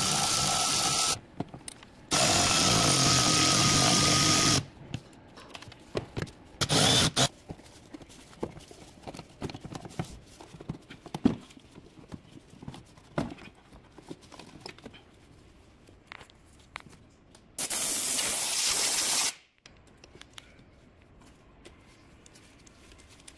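Cordless electric ratchet running in four short runs of up to about two and a half seconds each, with a steady motor whine, spinning out the air box fasteners. Clicks and knocks of tools and plastic parts being handled come between the runs.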